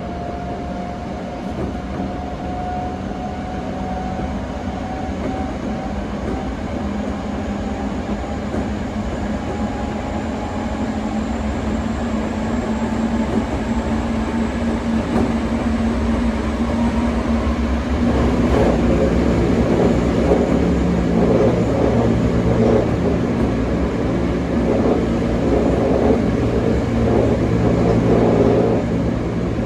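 Toei 5300 series train running, heard from inside the car: the Mitsubishi GTO VVVF inverter whines with a tone that rises slowly over the first third. About two-thirds of the way through, the running sound grows louder with a heavier low rumble.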